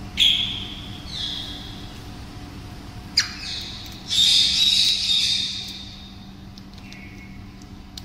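Yellow-crowned Amazon parrot squawking: a few short, high calls, then a longer, louder one about four seconds in, and a faint one near the end.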